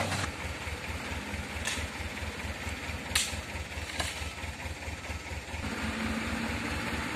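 Truck diesel engine idling with an even low chugging, with a few short sharp knocks over it around the middle. A low steady hum joins in near the end.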